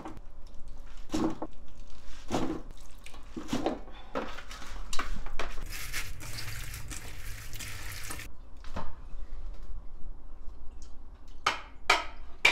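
Handfuls of wet salted napa cabbage dropped into a steel bowl of kimchi brine, splashing about once a second. Then a few seconds of hands tossing and squishing the wet cabbage in the bowl, followed by a couple more splashes near the end.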